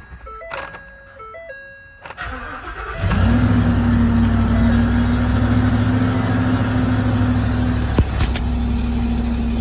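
Cab warning chimes sounding in stepped tones, then the starter cranks briefly about two seconds in and the 2013 Ford F-250 Super Duty's 6.2-litre gasoline V8 catches about a second later and settles into a steady idle. There is a single click near the end.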